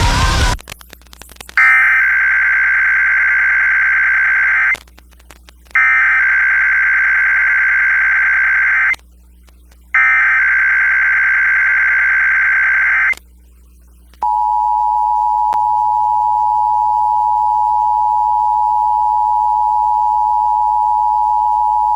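Emergency Alert System SAME header: three bursts of warbling digital data tones, each about three seconds long with a second's gap between them. A steady EAS attention tone then starts about 14 seconds in and holds. Music cuts off just before the first burst.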